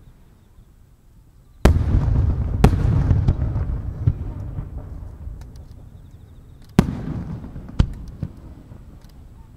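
Aerial firework shells bursting: four sharp bangs in two pairs about a second apart, the first pair under two seconds in and the second near seven seconds, each followed by a long rolling echo.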